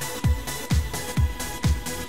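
Electronic dance music with a steady four-on-the-floor kick drum, about two beats a second.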